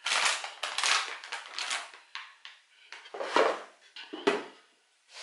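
Perforated metal baking tray being moved about on a countertop: a run of rough scrapes, then two louder clatters about three and four seconds in.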